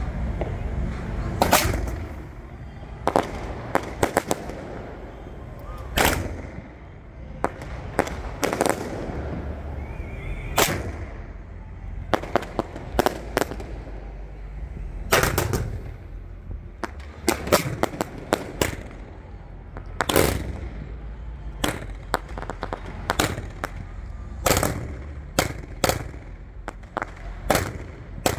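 1.4G close-proximity fireworks going off: about thirty sharp reports at irregular intervals, often several in quick succession, over a steady low rumble.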